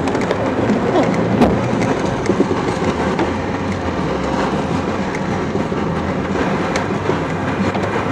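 Off-road vehicle driving over a rutted dirt track, heard inside the cabin: steady engine and road noise with irregular rattles and knocks from the body as it bounces over the ruts.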